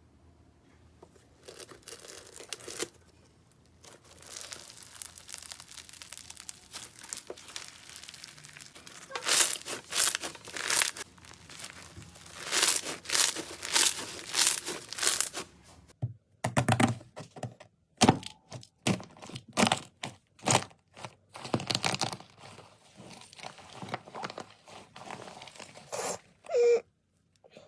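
Slime being squeezed, stretched and pressed by hand, making crackly, crinkling sounds; about halfway through this gives way to a series of sharp pops and clicks.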